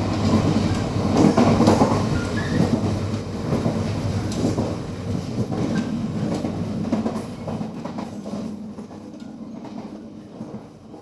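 Gangway between two cars of a diesel multiple unit Tze-Chiang express train running on the line: a steady rumble with rattling, clicks and knocks from the wheels and the car connection. It gets quieter over the last few seconds.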